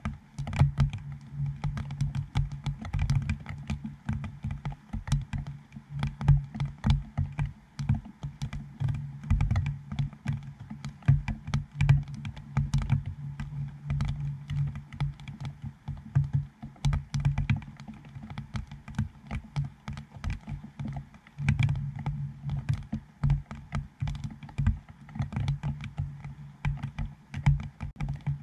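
Raindrops striking the plastic dome port of a GoPro Hero7: a dense, irregular patter of close taps, each with a dull low thud.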